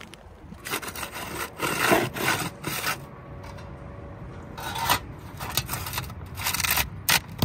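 Flat pry bar prying up asphalt shingles and a metal roof flashing being slid under the shingle course, scraping against the gritty shingles in three spells.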